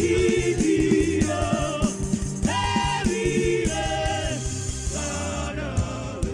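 Gospel worship music: a band with a steady beat under voices singing a sustained, wordless melody, gradually getting quieter.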